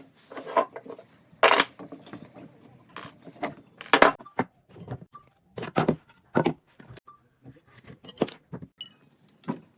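Irregular sharp knocks and metallic clinks, about a dozen, some with a brief ring: tools or hardware being handled and set down.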